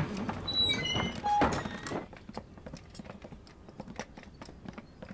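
A door thumps open, then several people walk in on a wooden floor, their footsteps a run of light taps. In the first second and a half a few short high tones step down in pitch.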